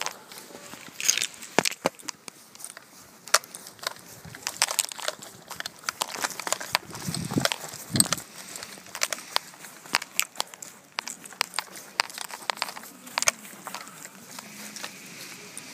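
Footsteps crunching and crackling through dry fallen leaves and twigs, in irregular sharp crackles.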